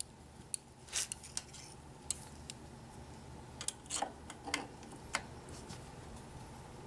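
Irregular light metallic clinks and clicks, about a dozen, with a steady low hum underneath: hand tools and small metal parts being handled.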